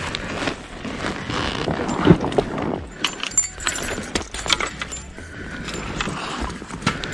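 Irregular clinking and rattling of fishing gear being handled and carried.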